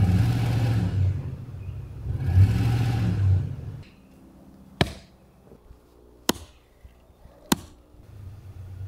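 Ford pickup truck engine revving twice as it strains on a strap hooked to a tree stump that won't budge, then easing off. After that come three sharp axe chops into the stump's roots, about a second and a half apart.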